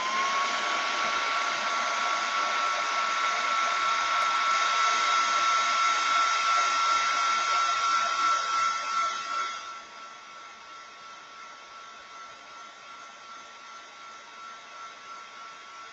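A handheld craft heat tool (embossing heat gun) blowing steadily with a thin motor whine as it dries wet watercolour paint on card. It gets much quieter about ten seconds in.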